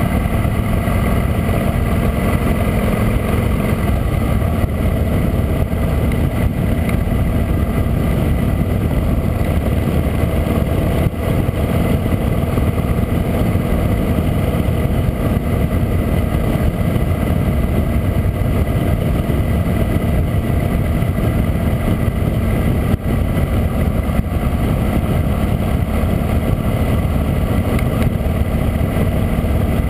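Harley-Davidson V-twin motorcycle running steadily at cruising speed, with road and wind noise over the camera.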